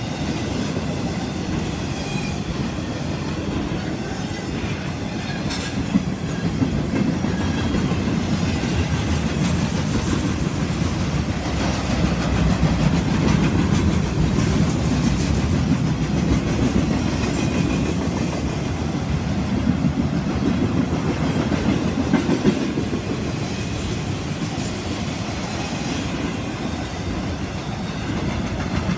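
A BNSF intermodal freight train's container and trailer cars rolling past: a steady rumble of steel wheels on the rails, with a few sharp clicks as wheels cross rail joints.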